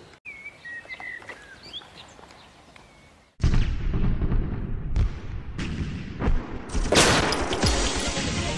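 Quiet outdoor air with a few faint chirps, then, about three seconds in, edited-in pistol gunshot sound effects start suddenly and loudly: about half a dozen shots over the next four seconds, coming thicker near the end.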